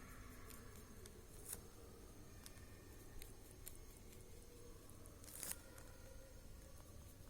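Near silence: room tone, with a few faint brief scratchy sounds, a small one about a second and a half in and a stronger one about five and a half seconds in.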